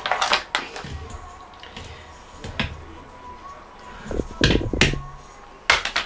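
Scattered handling knocks and clicks at a desk, about six in all, the loudest about four and a half and five and three-quarter seconds in.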